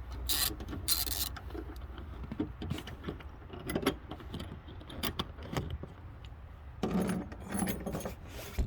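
Light metallic clinking and rattling of tools, bolts and seat hardware as a car's rear seat is unbolted and lifted out. A quick run of ratchet-like clicks comes in the first second, then scattered knocks and handling noise, busiest near the end.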